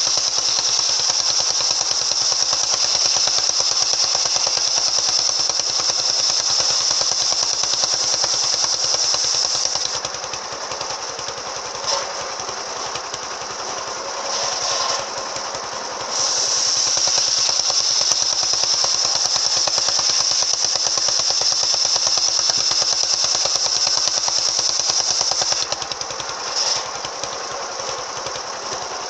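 Engine-driven circular saw with an AKM blade cutting timber: a loud high-pitched cutting whine lasting about ten seconds, a few seconds of the saw running unloaded, then a second cut of about ten seconds, after which it runs unloaded again near the end.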